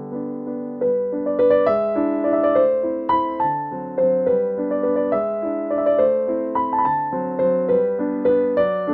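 Background piano music: a gentle melody of separate notes, each struck and fading away.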